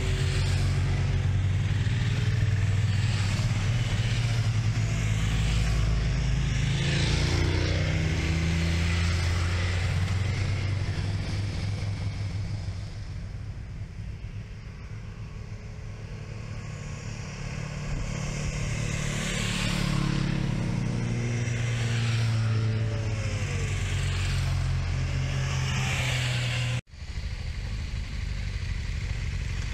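Motorcycle engine running under way, heard from the rider's own bike. The engine eases off about halfway through and picks up again a few seconds later. The sound breaks off for an instant near the end.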